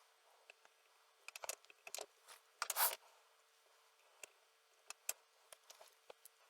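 Faint, scattered small clicks and taps of a PL-259 coax plug and soldering tools being handled while the outer shield is soldered. There is a short rustle about two and a half seconds in.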